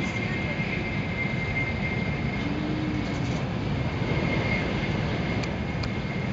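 Shinkansen bullet train running at high speed, heard from inside the passenger car: a steady rumble and rush of running noise with a faint steady high whine.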